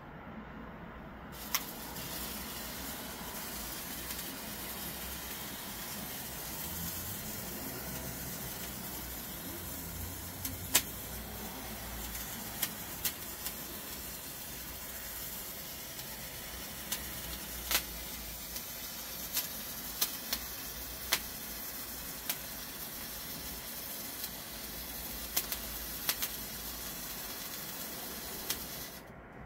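Lesli Colour Sprüher, a handheld colour-spark fountain stick, burning: a steady hiss of spraying sparks with sharp crackles now and then. It starts about a second and a half in and cuts off suddenly near the end, when the stick burns out.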